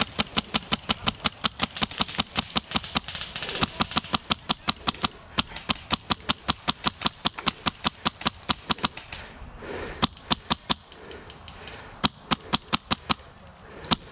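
Wolverine MTW high-pressure-air airsoft rifle firing a fast, steady string of shots, about six a second, for about nine seconds, then a few single shots spaced out near the end.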